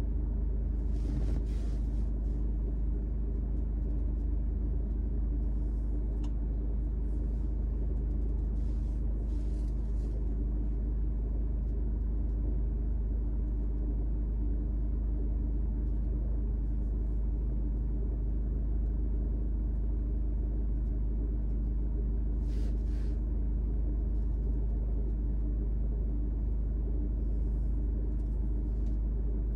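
Car engine idling while stationary, heard from inside the cabin as a steady low rumble and hum.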